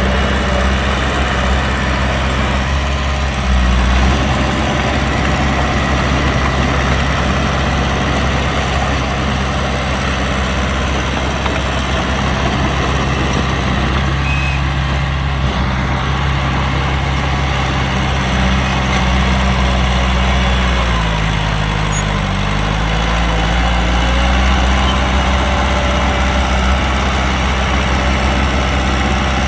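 Heavy construction-machine diesel engine running steadily at a low, even pitch. About two-thirds of the way through its pitch briefly sags, then comes back up.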